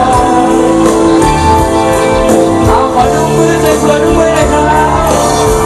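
Live pop music: male voices singing into microphones over a band with a steady drum beat.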